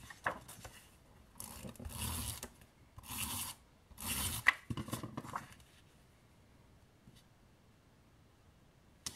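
Sheets of patterned paper and card sliding and rustling against each other on a work mat, in a few short scraping bursts over the first half or so.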